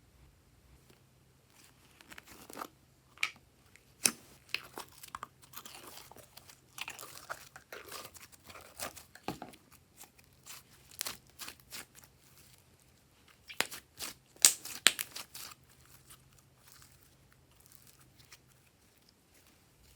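Glossy slime being squished and worked by hand, making irregular sticky crackles, clicks and pops. The loudest cluster comes about fourteen to fifteen seconds in, and it goes quiet for the last few seconds.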